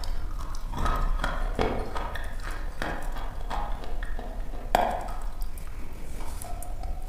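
A lump of dry chalk being bitten and chewed close to a lavalier microphone: a run of irregular crisp crunches, the loudest snap a little under five seconds in.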